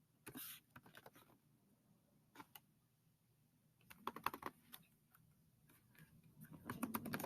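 Faint typing on a computer keyboard in a few short bursts of key clicks, the last and loudest burst near the end.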